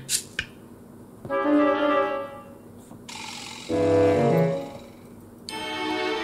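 Background music in short separate phrases with pauses between them, and a brief hiss about three seconds in.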